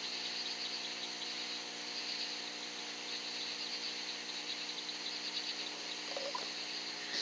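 A steady chorus of crickets chirping rapidly and continuously, with a faint steady electronic hum underneath.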